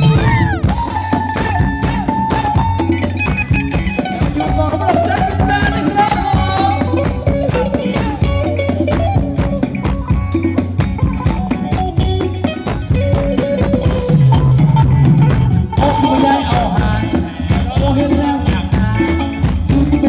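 Live Thai ramwong dance band music: a gliding lead melody over a steady bass beat and busy percussion.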